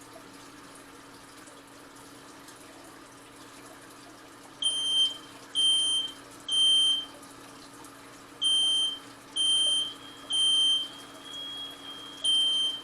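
Smoke detector alarm sounding loud, high-pitched beeps in groups of three with a pause between groups, the temporal-three evacuation signal. It starts about five seconds in, after faint steady room hum.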